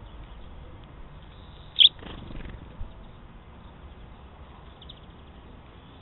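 Small songbirds at a seed pile: one sharp, loud chirp about two seconds in, followed by a brief rustle, and faint chirps later on.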